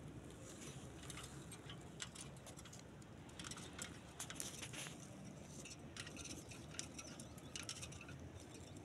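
Faint, irregular light clicks and small metallic rattles from a rose-ringed parakeet moving about its wire cage, its claws and beak on the bars.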